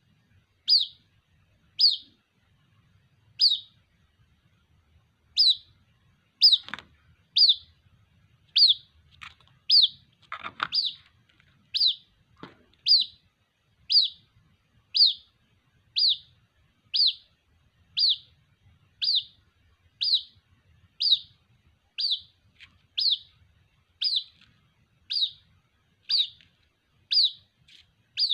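White-breasted waterhen (ruak-ruak) chick calling for its parent with short, high, slightly falling peeps, repeated about once a second.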